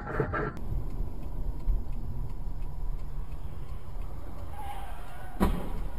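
Steady low rumble of a car driving, picked up by a dashcam inside the cabin. A short sound cuts off abruptly about half a second in, and there is a single sharp knock near the end.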